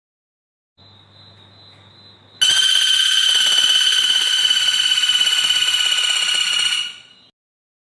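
A songbird's long, loud buzzing trill on one steady pitch, starting suddenly and lasting about four and a half seconds, over a faint hum.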